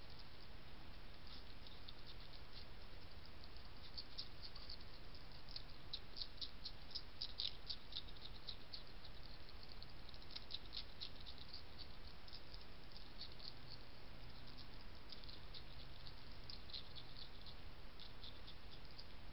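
European hedgehog crunching dry kitten biscuits from a plate: rapid, sharp crunching clicks in irregular bursts, thickest around the middle, over a steady faint hiss and low hum.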